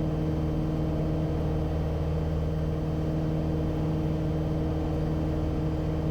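Piper Cherokee's piston engine and propeller droning steadily in flight, with an even, unchanging pitch.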